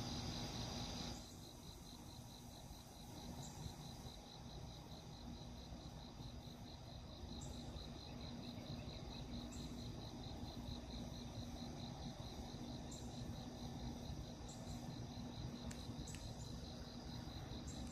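Insects chirping in a steady, rhythmic pulse over a continuous higher trill, with a faint steady low hum beneath.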